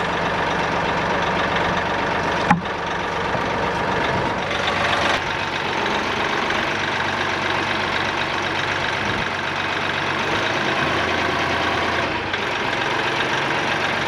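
Tractor engine running steadily while its front loader carries a log on the forks, with one sharp knock about two and a half seconds in.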